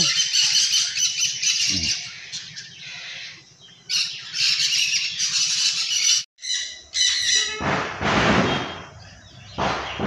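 Many small aviary finches chirping and twittering together in a dense, high-pitched chorus. Near the end come two brief rushing noises.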